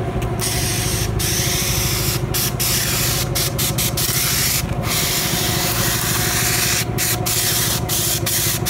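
Asphalt tack coat being sprayed from a hand wand in a steady hiss that cuts out briefly several times as the trigger is let go, over the steady hum of an engine running.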